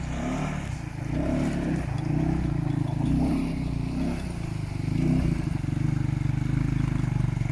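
UTV engine running steadily at low revs, its note swelling and easing slightly.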